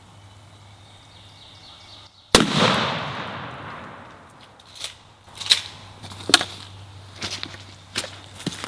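A single shotgun blast about two seconds in, echoing and fading over a second or so: a turkey shotgun fired at a gobbler about 15 yards away. Several smaller sharp snaps and cracks follow.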